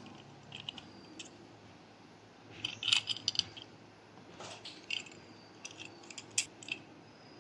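Light clicks and ticks of a plastic handlebar clamp being unscrewed and taken apart by hand, with its small metal bolt and nut set down, in scattered clusters that are busiest about three seconds in.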